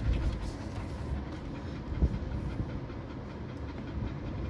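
Suzuki Jimny creeping down a rocky track, heard from inside the cabin: a low rumble from the vehicle rolling over loose rocks, with irregular knocks and one sharp knock about two seconds in.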